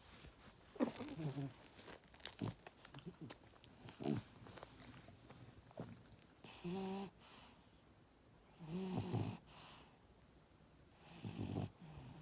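French bulldog puppy snoring in its sleep: about five snores spaced a couple of seconds apart, one of them carrying a higher whistling tone, with a few small clicks between them.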